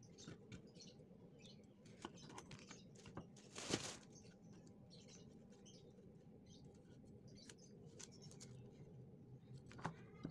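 Quiet knife work on a head of broccoli on a wooden chopping board: faint scattered clicks and rustles, with one louder knock about four seconds in.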